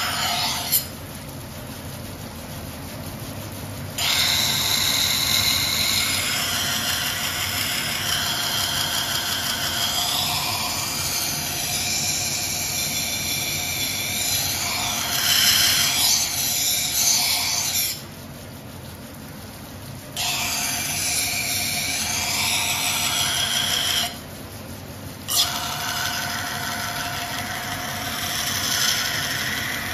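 Steel blade pressed against a large water-fed carborundum grinding wheel on a Japanese kaiten wet grinder. It gives a high squealing grind in several long passes, with short breaks in which only the quieter low running of the wheel is heard.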